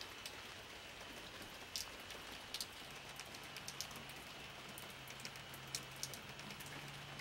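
Steady, faint rain, with scattered single drops ticking sharply.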